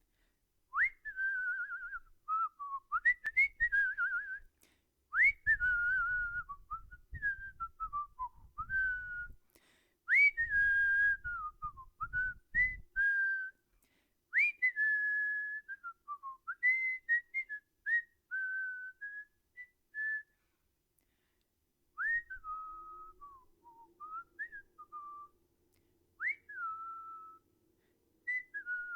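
A person whistling a wandering, unmetred tune in short phrases with gaps between them. Many phrases open with a quick upward swoop and then slide down in pitch.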